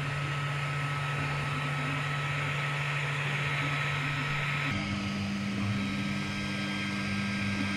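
XVICO X3S 3D printer running with a steady mechanical hum and a faint whine; its low hum steps up in pitch about five seconds in.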